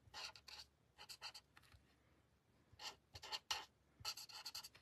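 Faint scratching of a marker tip on cardstock, in quick short strokes that come in clusters with brief pauses, as a stamped image is colored in.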